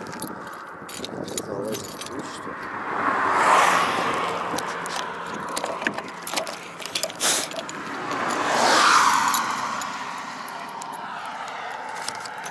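Two road vehicles passing by, one peaking about three and a half seconds in and the other around nine seconds, each swelling up and fading away. Close clicks and rustles run under them.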